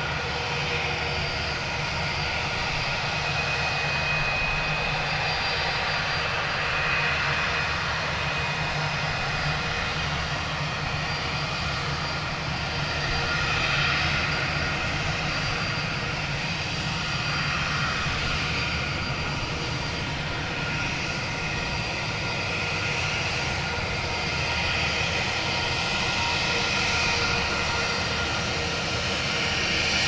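Airbus A320 jet engines running at low power as the airliner taxis: a steady whine of high tones over a continuous low rumble that swells slightly now and then.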